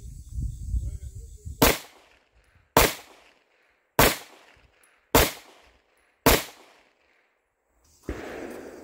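Five pistol shots fired at a steady pace, a little over a second apart, each a sharp crack that dies away quickly.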